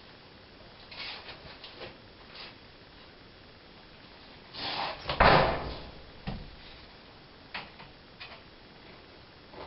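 Handling noises from work on a car's interior trim: a few light clicks and taps, then a louder rustle ending in a thump about five seconds in, followed by another knock and some scattered ticks.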